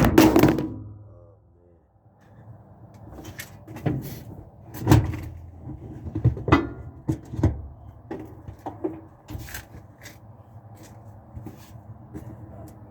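Scattered handling knocks and clunks of hands and a phone against the parts inside a front-load washer's cabinet, a few sharp taps over a faint steady hum.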